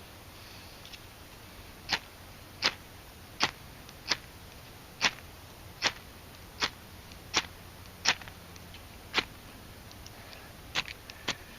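A fire-starter striker scraped hard again and again to throw sparks onto fine pine fatwood shavings: about a dozen short, sharp rasps, roughly one every three-quarters of a second, with a longer pause near the end. The shavings are not catching; they are not sappy enough.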